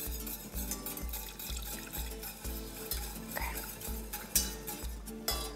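A spoon stirring and scraping in a stainless-steel saucepan as white stock is added little by little to a butter-and-flour roux for velouté sauce. Soft background music with an even beat, about two a second, runs underneath.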